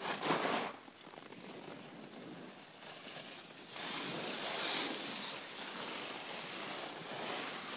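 Skis hissing and scraping over packed snow on a piste. There is a short loud scrape at the start and a longer, louder scrape about four to five seconds in.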